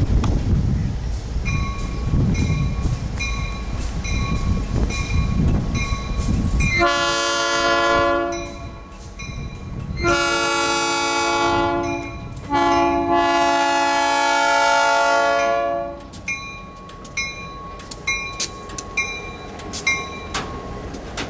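Union Pacific diesel locomotive sounding its multi-chime horn for a grade crossing, three blasts with the last the longest, over a crossing signal bell ringing steadily. Near the end the horn stops and the wheels clack over the rail joints and crossing as the cars pass, the bell still ringing.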